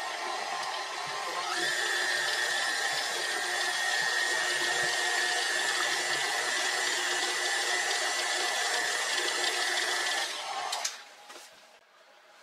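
Electric mixer beating thick ube cake batter. It runs with a steady whine, speeds up about a second and a half in, and shuts off near the end, followed by a few light clicks.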